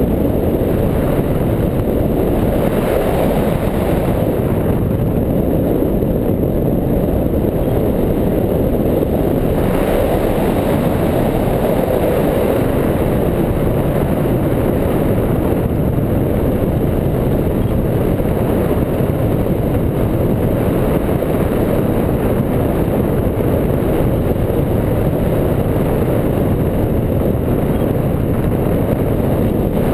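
Steady, loud wind buffeting on the microphone of a camera mounted on a hang glider's wing in flight, with no engine or voices.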